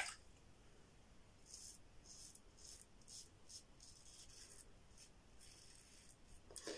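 Faint scraping of a Yuma closed-comb double-edge safety razor with a Derby Ursa blade cutting four-day stubble through shaving cream, in a string of short strokes.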